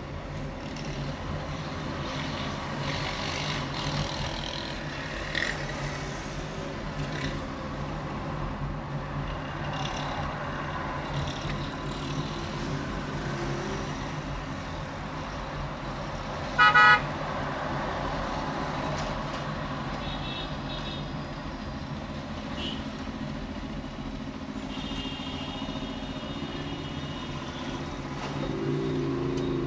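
Street traffic: a steady engine drone with passing vehicles. A vehicle horn sounds once, loud and short, a little past the middle, and fainter horns toot a few seconds later.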